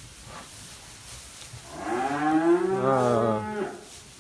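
Belgian Blue calf mooing once, a single call of about two seconds starting about two seconds in, its pitch rising and then falling.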